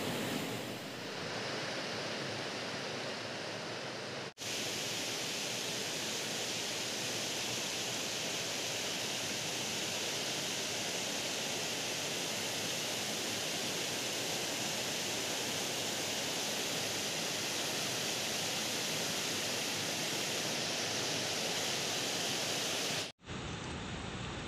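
Steady rushing of river water running over rocks, an even hiss, broken by two abrupt cuts, about four seconds in and near the end.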